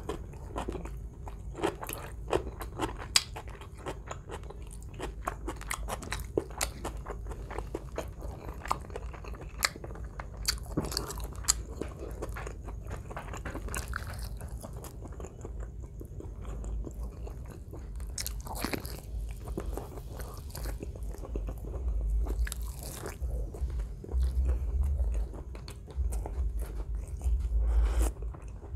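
Close-miked chewing and biting of roast chicken asado by hand, with many sharp, wet crackling clicks and crunchy bites. A low rumbling thump builds near the end and is the loudest thing heard.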